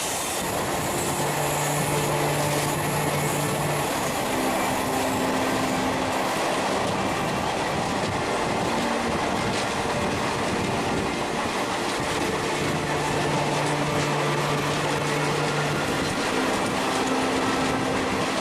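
Passenger train running along the track: a steady rumble and rattle of the wheels and carriage, with a few held low tones that come and go.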